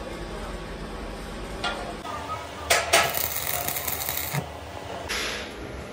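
Electric arc welding on a steel frame: the arc crackles and hisses in a burst starting about two and a half seconds in, and again near the end.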